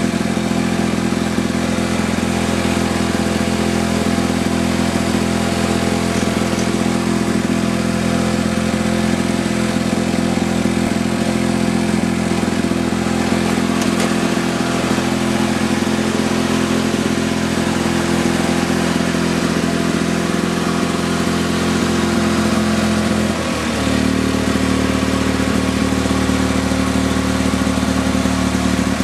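1965 Lawn-Boy model 5233 mower's two-stroke engine running steadily, with its freshly rebuilt piston, cylinder and crank. About 23 seconds in, its note changes abruptly to a different steady pitch.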